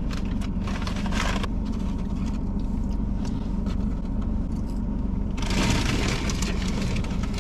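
A car's engine hums steadily at low pitch, heard from inside the cabin. A louder hiss-like noise rises about five and a half seconds in.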